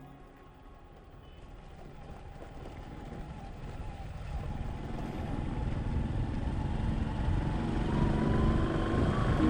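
Road vehicle noise, engine and tyres, growing steadily louder.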